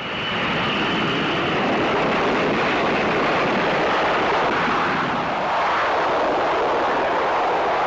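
Aircraft engine noise from a fixed-wing plane: a loud, steady rushing drone that swells up just as it starts, with a thin high whine near the start.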